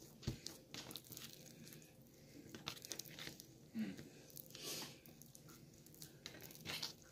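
Faint handling noises of hands pressing and rolling dough on a wooden table: scattered soft taps and crinkly rustles at irregular moments.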